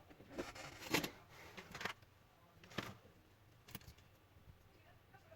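Hands working on laptop casing parts: several sharp clicks and light taps, roughly a second apart, with faint rustling in the first two seconds, then quieter.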